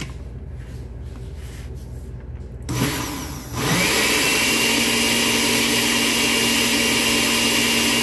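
Countertop blender switched on about three seconds in, blending a thin cake batter, and running steadily at an even pitch.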